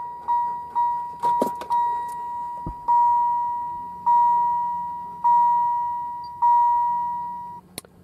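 A 1993–1998 Camaro door chime module (GM 14101255) in a GM truck sounds a repeating electronic ding that fades after each strike. It dings about twice a second at first. After a few clicks, it slows to about one ding every second and a quarter, then stops shortly before the end. The change in pace follows the warning it is giving, either the key left in the ignition or the headlights left on.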